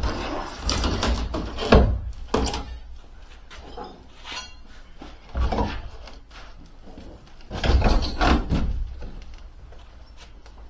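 Wooden shipping crate being taken apart: irregular knocks and thumps with scraping between them, the loudest about two seconds in and again around eight seconds.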